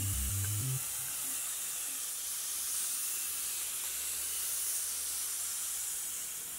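Compressed-air paint spray gun hissing steadily as it sprays epoxy primer, with background music ending under it less than a second in. The hiss fades away at the end.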